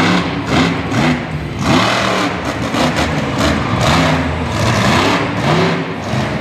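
Bounty Hunter monster truck's engine revving hard, its pitch climbing and dropping again and again as the truck drives and jumps.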